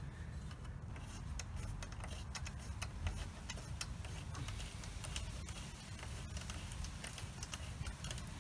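Irregular ticking clicks, several a second, from a hand socket driver being turned to tighten a bolt in a 3D-printed steering part, over a steady low rumble.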